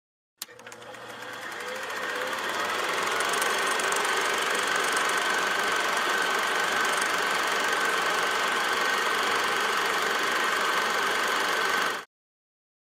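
Film projector running: a click about half a second in, then a mechanical whirr and clatter that builds over a couple of seconds and holds steady with a thin high whine, until it cuts off suddenly near the end.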